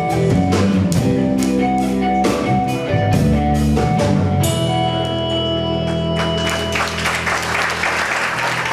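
Live band playing a drum-kit and electric-guitar song with rhythmic drum and cymbal hits, ending on a held, ringing chord about four and a half seconds in. Audience applause rises over the fading chord near the end.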